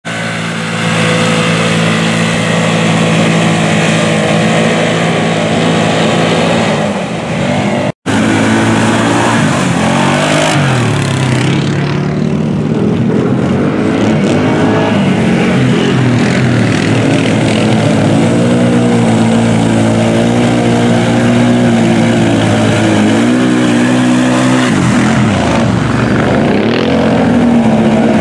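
ATV and side-by-side engines running through a mud bog. Steady at first, then revving up and down repeatedly as the quads push through the mud. A brief dropout comes about eight seconds in.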